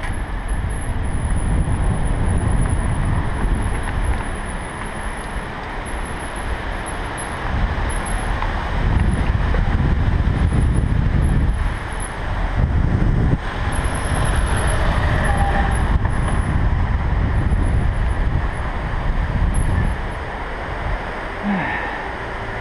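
Wind buffeting the action camera's microphone while riding a bicycle downhill: a loud, low, rumbling rush that rises and falls with speed, easing off briefly a few times.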